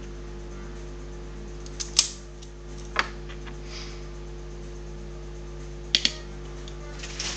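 Sharp snips of a cutter cutting electrical wire to shorten it: a loud snap about two seconds in, another a second later, then a quick double snap about six seconds in, over a steady low hum.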